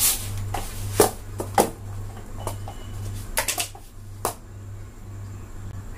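Irregular clicks and light knocks of kitchen utensils and containers being picked up and set down, about ten in all, the loudest about a second in and again half a second later, over a low steady hum.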